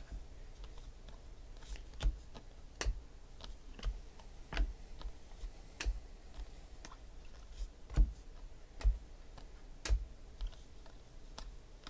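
2016 Panini Select football cards being flicked through one by one from a hand-held stack: a series of light clicks and snaps of the card stock, irregular and about one a second.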